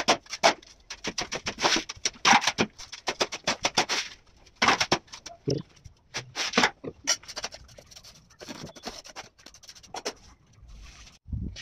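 Spade scraping and scooping sand-cement mortar from a heap into a pan: a quick run of short scrapes and knocks, thinning to scattered scuffs after about five seconds.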